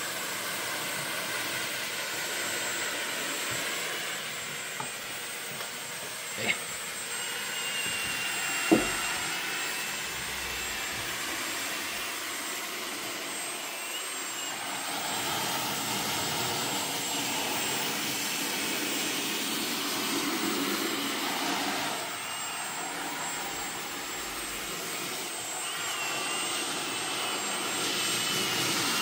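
Cordless drill spinning a carpet brush that scrubs shampoo foam into a cloth seat's upholstery: a steady motor whine over the brush noise. Two sharp knocks about six and nine seconds in.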